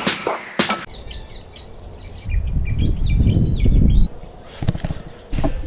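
Small birds chirping in short, repeated high notes, over an intermittent low rumble.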